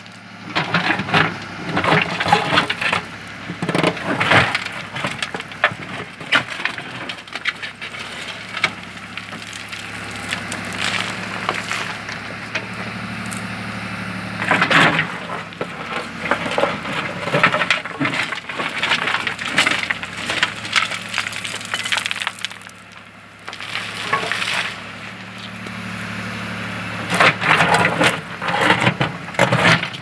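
Tractor-mounted backhoe digging in stony ground: the tractor's engine runs steadily while the steel bucket scrapes and knocks against rocks, with clusters of sharp rattling stone impacts as each scoop bites and is lifted.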